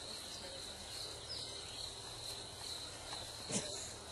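Steady high-pitched insect chirring in the grass, with a single knock about three and a half seconds in.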